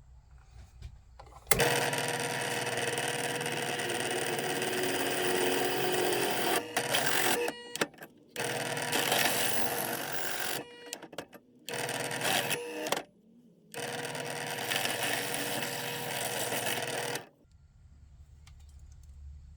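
An electric power tool working metal, running with a steady whine in four bursts with short stops between them, for about fifteen seconds.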